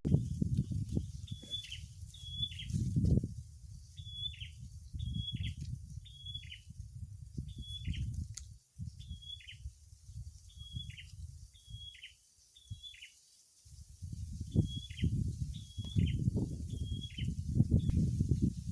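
A bird calling over and over, a short high note that drops sharply in pitch each time, given in runs of two or three about half a second apart. Underneath is an uneven low rumbling noise.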